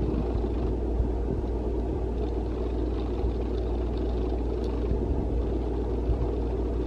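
Steady low hum and rumble from an electric cooktop heating a pan of water, not yet boiling. A few faint light taps come about halfway through as wooden chopsticks move the rice cakes in the pan.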